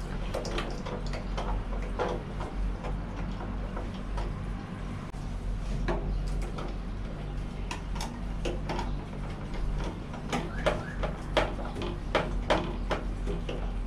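Hard plastic clicks and taps from a toilet cistern's flush-lever fittings being worked and refitted by hand and with a screwdriver, coming thicker near the end, over a steady low hum.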